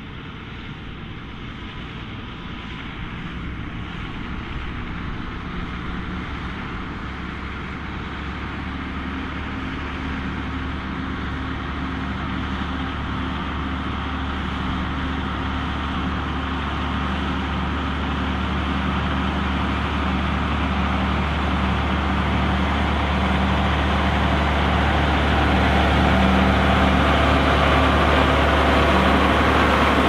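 Diesel engines of two big tractors pulling ploughs under load, the nearer a John Deere 9560R with its 15-litre Cummins six. The engine note is steady and grows louder the whole time as they approach and the 9560R comes right up close.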